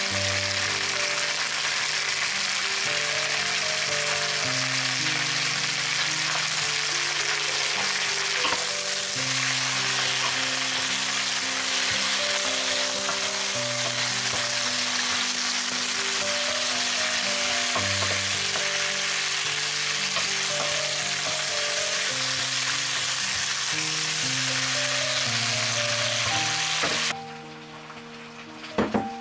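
Zucchini slices frying in hot oil in a pan, a steady loud sizzle as they are stirred with a wooden spoon, over background music of held melody notes. The sizzling cuts off suddenly near the end.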